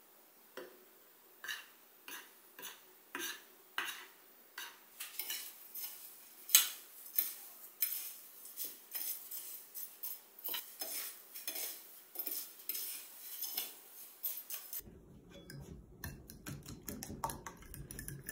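Kitchen utensils clinking and knocking against dishes and pans in a string of light, irregular clicks that come quicker after about five seconds. Near the end the sound changes abruptly to a denser clatter over a low hum.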